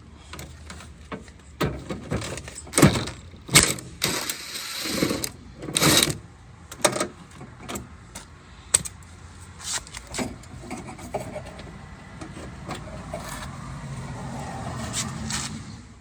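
Hand tools clinking, knocking and scraping against a car door as screws are taken out, with a longer rasping stretch about four seconds in.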